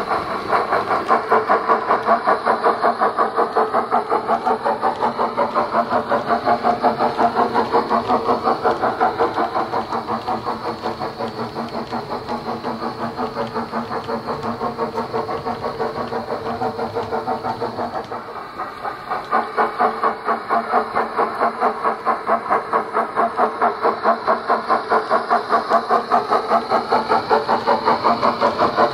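Steam locomotive exhaust chuffs from a Wheeltappers DCC sound decoder in a Bachmann 9F model, played through a megabass speaker in the tender, beating fast and evenly as the model runs. The beats grow fainter as the engine runs away round the layout and louder again a little past halfway as it comes back into view.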